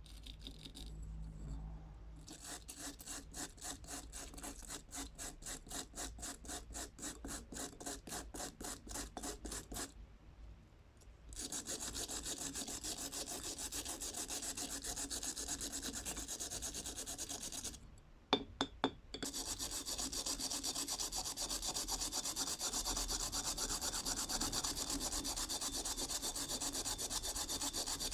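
Abrasive work on an old screwdriver: brisk back-and-forth rubbing strokes, about three to four a second, then a pause and a long steady stretch of continuous scraping, broken by a couple of sharp clicks midway.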